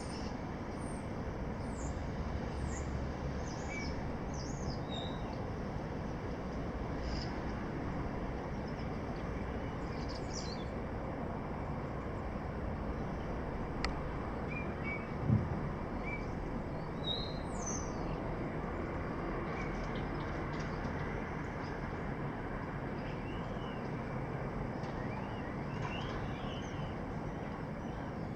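Birds chirping in short scattered calls over a steady city background hum, with one brief low thump about halfway through.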